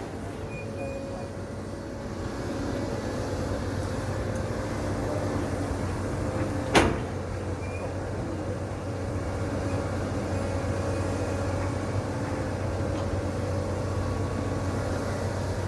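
Caterpillar 320D excavator's diesel engine running steadily, a low hum with a steady higher tone over it, and a single sharp knock about seven seconds in.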